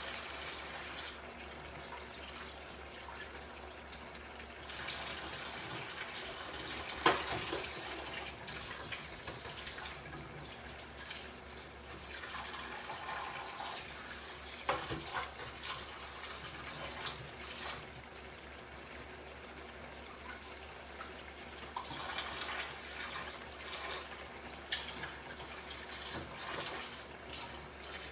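Tomato-based fish soup simmering in a pan, with steady bubbling and small scattered pops and one sharper click about seven seconds in.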